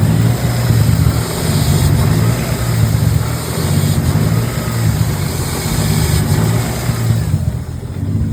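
Turbocharged BMW M52 straight-six idling roughly, its level surging and dipping unevenly: a rough idle that appeared after a firmware update to its Link G4X engine management. A high hiss over the engine fades out about seven seconds in.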